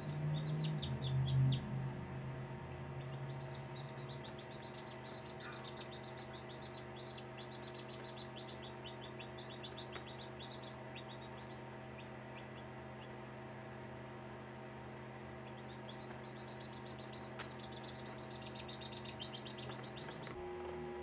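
Newly hatched chick peeping in long runs of quick, high peeps, falling quiet through the middle and starting up again near the end, over a steady electrical hum.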